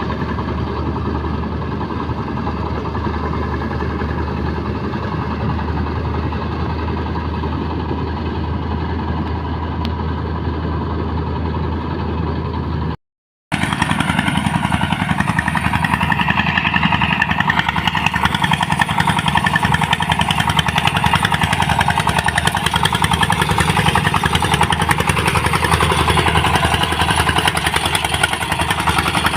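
Engine-driven rice threshing machine running steadily at a constant speed. After a brief cut in the audio, it carries on with more high-pitched hiss and rattle.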